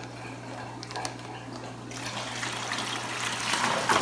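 Water running out of a fish shipping bag into a plastic bucket, growing louder in the last two seconds.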